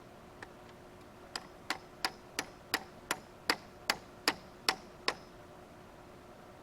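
A run of about eleven sharp clicks, evenly spaced at roughly three a second, starting after a single faint click and stopping abruptly.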